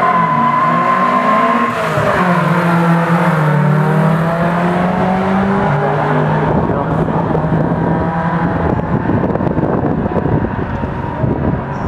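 Two Toyota pickup trucks launching off a drag-strip start line together and accelerating hard, their engines rising in pitch through the gears. They grow fainter in the second half as they pull away down the track.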